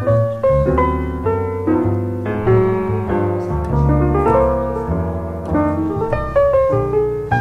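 Background piano music: a flowing line of single notes over held low bass notes.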